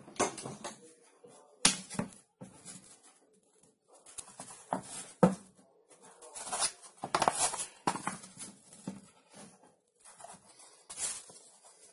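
Thin plywood panels being handled on a wooden workbench: irregular scuffing and sliding, with a few sharp taps as a board is set down.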